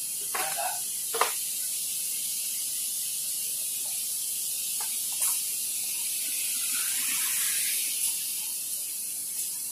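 Steady high hiss with a few faint short knocks about half a second, a second and five seconds in.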